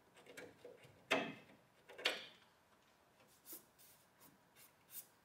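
Hand deburring tool clicking and scraping on freshly drilled holes in aluminium sheet: two sharp clicks about a second apart, then a few faint ticks.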